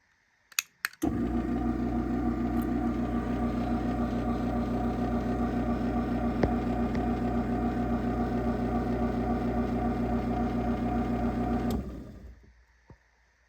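Craftsman chain-drive garage door opener: a couple of clicks, then the motor starts about a second in, runs at a steady hum while driving the door, and shuts off near the end.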